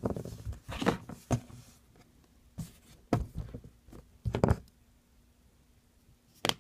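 Plastic chick-shaped Play-Doh stamper being handled and pressed into modelling dough on a table: a series of short thumps and taps, several in quick succession, with one sharper tap near the end.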